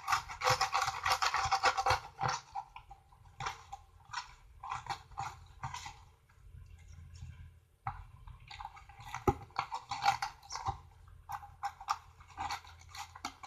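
Slime being kneaded and scraped around a bowl by hand: irregular bursts of wet squelching and sticky clicking, quieter for a moment around the middle.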